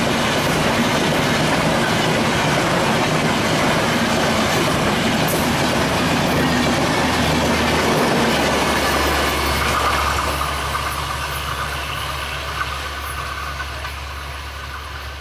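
Express train's passenger coaches rolling past at speed, their wheels running loudly over the track. From about ten seconds in the noise fades as the end of the train draws away.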